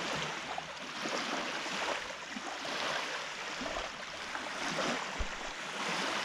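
Lake water lapping and splashing at the shore, a rushing noise that rises and falls irregularly, with a few low thumps near the end.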